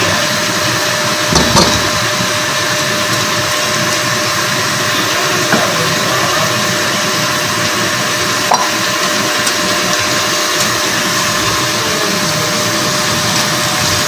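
Tomato paste, onions and ginger-garlic paste sizzling in hot oil in a frying pan: a steady hiss, with a couple of sharp clicks.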